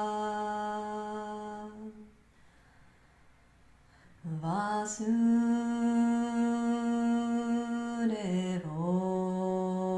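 A woman's voice chanting a slow devotional mantra in long held notes. A note fades out about two seconds in, leaving a breath pause of about two seconds; the next note scoops up into place and holds, then dips and rises back near the end.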